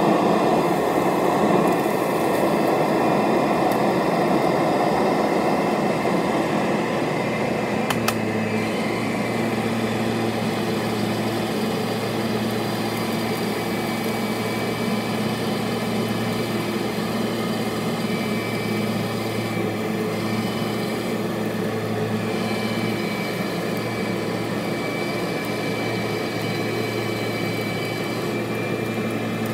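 Kirby Sentria II upright vacuum cleaner running steadily over carpet, picking up dirt, sand and cat hair. About eight seconds in there is a click, after which the drone settles into a steadier, slightly quieter hum.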